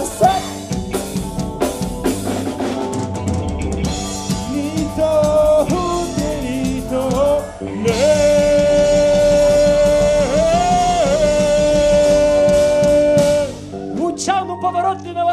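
Rock band playing live: drum kit, electric guitar and bass guitar. A long note is held from about eight seconds in, then the band drops out briefly near the end before the drums come back in.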